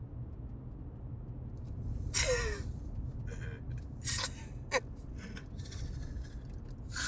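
A man and a woman laughing in short breathy gasps over the steady low rumble of a car cabin on the move.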